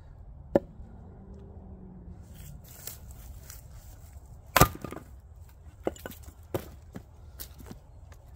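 A Council Tools splitting axe strikes a firewood round once, about halfway through, with a sharp crack as the round splits. A lighter wooden knock comes about half a second in as the round is set on the chopping block, and a few small knocks follow the split as the pieces fall and are handled.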